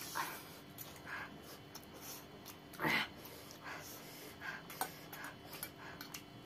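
Two people eating spicy instant noodles: repeated slurps and chewing, with a few light clicks of forks on plates. The loudest slurp comes about three seconds in.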